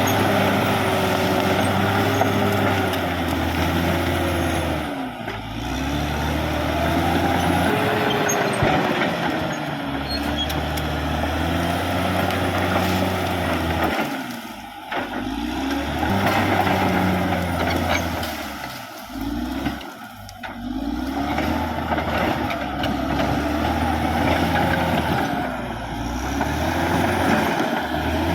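Caterpillar D6R XL bulldozer's diesel engine working under load, its pitch rising and falling as it pushes, with the engine easing off briefly a few times.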